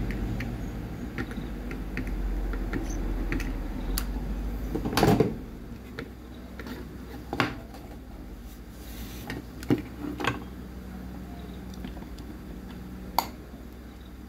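Scattered clicks and knocks of a charger circuit board and tools being handled on a workbench, with one louder knock about five seconds in. A low steady background noise fades out at about the same point.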